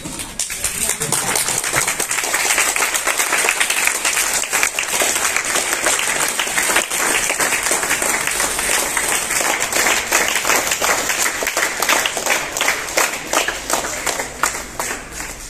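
A crowd of students applauding: dense hand clapping that starts abruptly, keeps up steadily, and thins out near the end.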